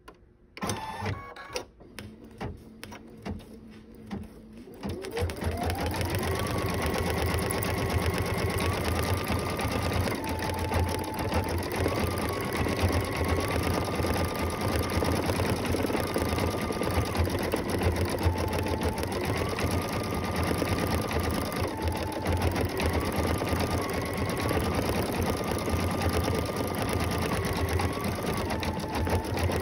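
Computerized embroidery machine stitching. After a few clicks, the motor spins up with a rising whine about five seconds in. It then keeps up a fast, steady clatter of needle strokes whose pitch steps up and down as the stitching speed changes.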